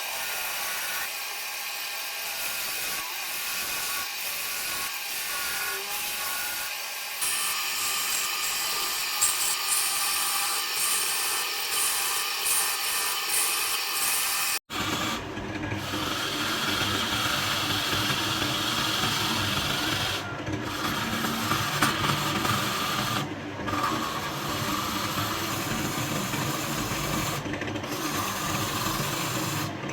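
Wood lathe running while a tool scrapes the spinning wood, a steady scraping noise. Halfway through the sound changes abruptly and grows fuller, with a few brief breaks as the tool comes off the wood.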